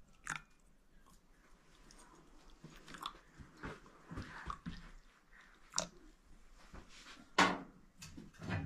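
Tea poured from a glass teapot into porcelain cups in short pours, with several sharp clicks and knocks among them, the loudest about seven and a half seconds in.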